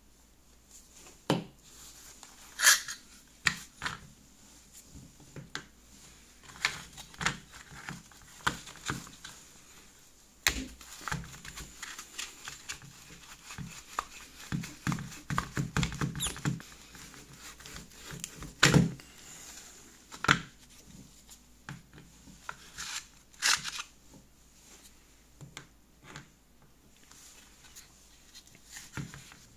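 Handling noise from a rusty pressed-steel Tonka toy jeep and its plastic wheels being taken apart by gloved hands: scattered clicks and knocks, with a busier run of small knocks in the middle and a few louder single knocks.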